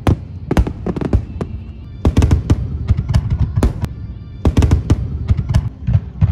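Fireworks finale barrage: shells bursting in rapid, nonstop succession, many sharp bangs over a continuous low rumble, with music playing along.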